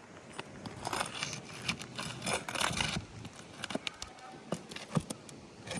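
Asphalt roof shingles being pried up with a flat pry bar to get at the nails: bursts of scraping and crackling, then a few sharp knocks near the end.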